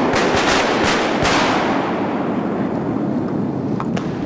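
Volley of shotgun fire from several duck hunters: several shots in quick succession over the first second or so, then the shooting stops and the echo rolls away through the timber into a low steady rush.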